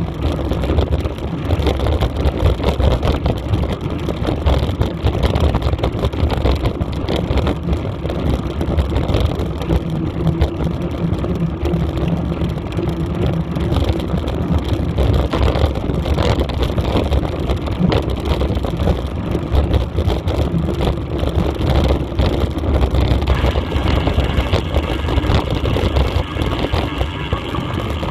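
Steady rumble of wind on the microphone and tyres on gravel while travelling fast along a dirt track, with no clear pauses.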